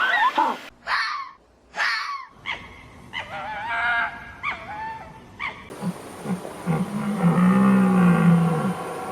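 A run of different animal calls. Short high cries and wavering calls come first. From about six seconds in, a deep low call repeats several times.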